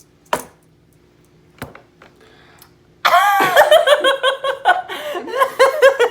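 Two sharp knocks in the first two seconds, then loud, hearty laughter from about three seconds in, in fast repeated ha-ha pulses.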